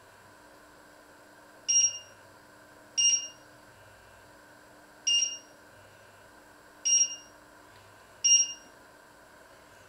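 Touch-control panel of a glass-ceramic hob beeping as a finger presses it to set the cooking zone: five short, high beeps at uneven intervals, one press per beep.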